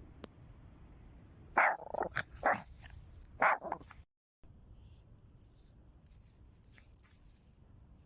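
Small dog barking in a quick run of four or five sharp barks, about a second and a half in, after which it stops.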